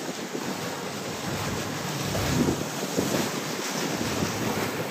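Wind buffeting the microphone over a steady rush of water and waves, gusting louder around the middle.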